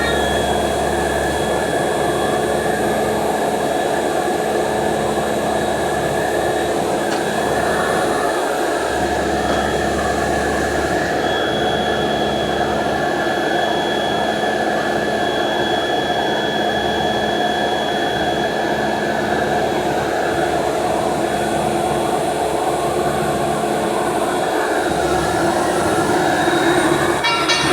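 A heavy machine running steadily: a constant loud drone with a few steady whining tones, getting a little louder near the end.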